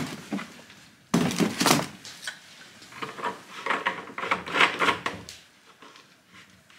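Hard plastic containers being handled: an empty oil jug set down into a cardboard box, then a cap worked at on the top of a plastic Husqvarna Combi fuel-and-oil can. A clatter about a second in, then a run of small clicks and knocks that stops a little after five seconds.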